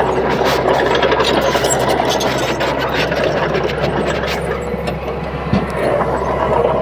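Komatsu D31P bulldozer's diesel engine running steadily, with frequent short metallic clanks and knocks over it.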